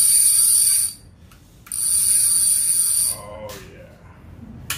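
An Avet fishing reel's clicker ratchet buzzing as its spool is spun by hand, in two bursts of about a second each: one ending about a second in, the next from just under two seconds to about three seconds in.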